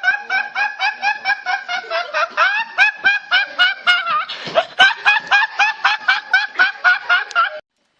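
A meme laughter sound effect: rapid, very high-pitched cackling laughter, about four or five short 'ha's a second, that cuts off suddenly near the end.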